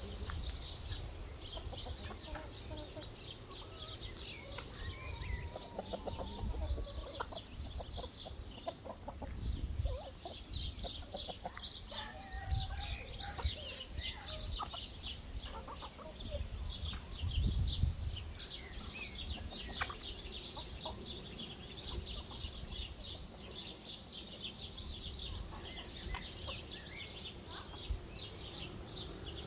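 Free-ranging chickens clucking as they peck and forage, with small birds chirping rapidly and high in the background and uneven low rumbles of wind on the microphone.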